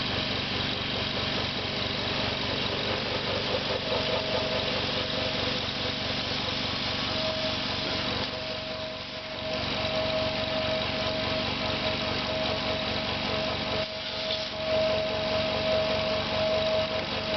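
Compressor running steadily with its air outlet closed, building pressure: a continuous mechanical hum with a steady whine over it, dipping briefly twice.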